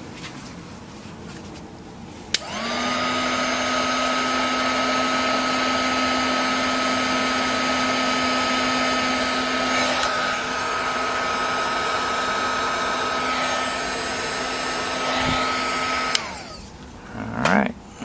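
Electric hot-air blower switched on about two seconds in, its fan spinning up to a steady tone with a strong hiss of air. It is shrinking heat-shrink tubing over a freshly soldered wire joint. It runs for about fourteen seconds, then cuts off, followed by a few brief handling sounds.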